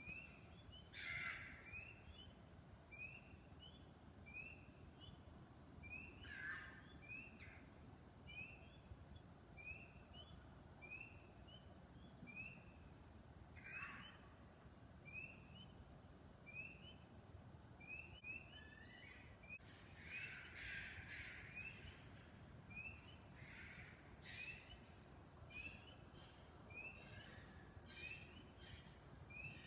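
Faint, harsh calls of a wild canid, which the uploader takes for a coyote or a fox: single calls a few seconds apart at first, then many in quick succession in the last third. Underneath, a steady series of short, high, rising chirps repeats about once a second.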